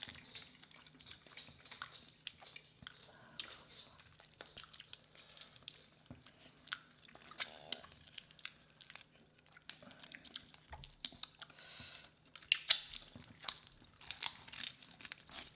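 Faint eating sounds of seafood boil being chewed, with scattered small clicks, bites and crunches.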